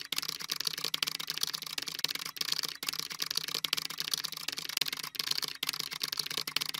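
Computer-keyboard typing sound effect: a fast, continuous run of key clicks with a few brief pauses.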